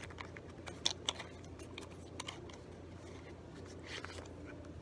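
Handling noise: light clicks and taps as a small e-liquid bottle and vape device are handled, with two sharper clicks about a second in, over a faint steady hum.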